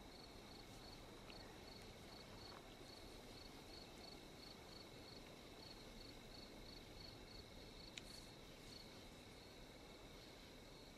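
Faint cricket chirping: a high, even pulse repeating steadily over a low background hiss, with a single sharp click about eight seconds in.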